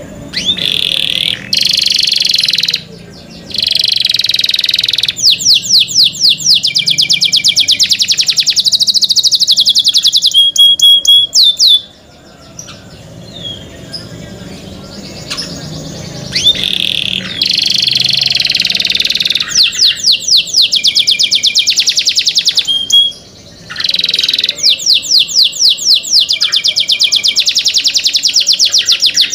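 Canary singing: long, loud phrases of fast repeated notes and rolling trills with a few held whistles. The song breaks off in short gaps and goes quieter for several seconds about midway.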